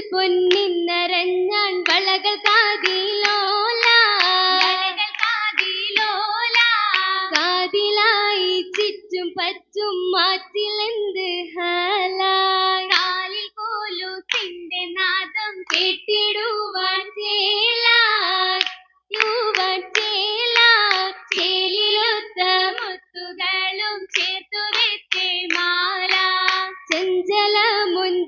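Girls' voices singing an Oppana song in unison, with the dancers' sharp, frequent hand claps keeping the rhythm. The singing breaks off briefly a few times.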